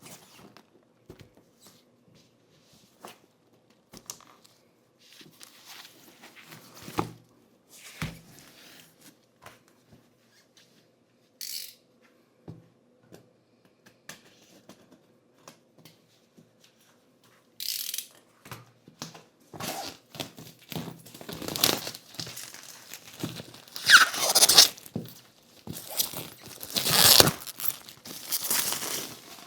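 Packaging being handled during an unboxing: scattered light taps and rustles, then, from about two-thirds of the way in, louder bursts of crinkling and tearing with a few squeaks.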